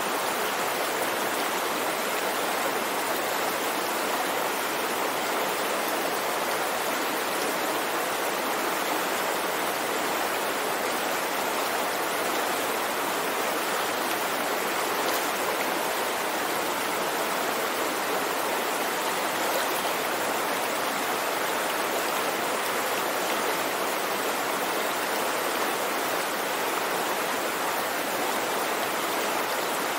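Small river flowing over a shallow, stony bed: a steady rush of running water with no breaks.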